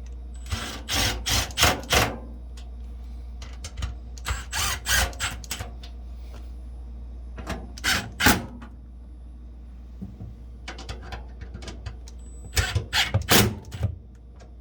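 Clattering and clicking of a metal refrigerator access panel and its screws being fitted and fastened back on, in four short bursts, over a steady low hum.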